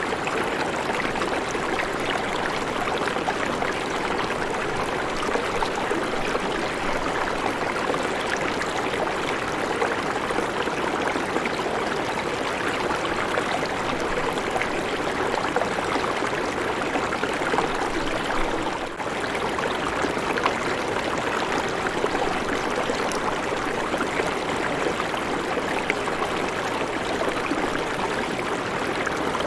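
River water flowing steadily, an even, continuous rushing noise.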